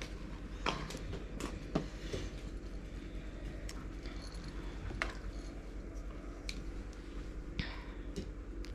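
Scattered light clicks and taps of small plastic craft pieces and a resin bottle being handled, over a steady low hum.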